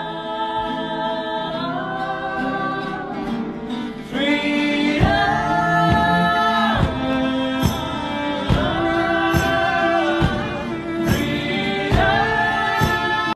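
A small group singing together in long held notes, accompanied by two acoustic guitars and a cello. About four to five seconds in the accompaniment grows stronger, with strums roughly once a second.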